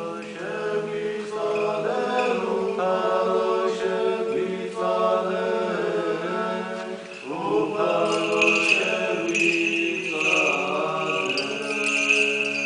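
Several voices chanting an Orthodox liturgical hymn together in harmony over a held low note, sung in phrases with short breaks between them.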